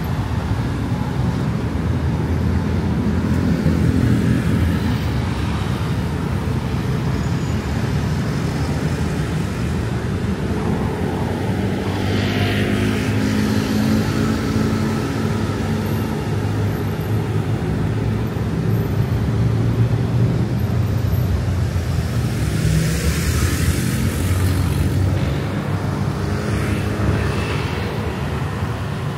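City road traffic: engines running low and steady, with vehicles passing by about twelve seconds in and again a little after twenty seconds.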